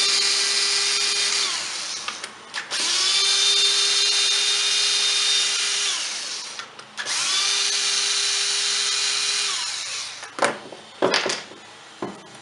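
Cordless drill-driver backing out the screws that hold a Stihl BR420 blower's crankcase together: three runs of the motor's steady whine, each a few seconds long, the first already under way. A few sharp clicks and clatters follow near the end.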